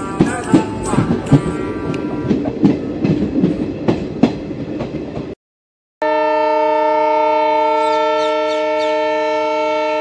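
Background music with a steady beat that cuts off about five seconds in. After a short silence, a train horn sounds one long, steady multi-note chord.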